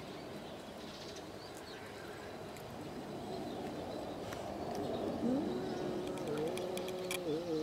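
Domestic cat's low, drawn-out yowl in a territorial standoff with another cat. It starts about five seconds in, rises, holds one low pitch, then wavers and begins to fall near the end.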